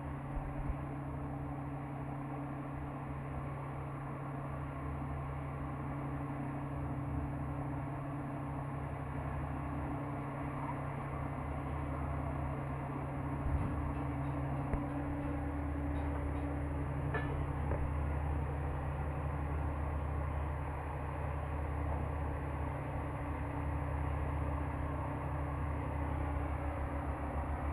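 Heavy girder-lifting machinery running with a steady low hum, several low pitches held constant, and a few faint clicks about halfway through.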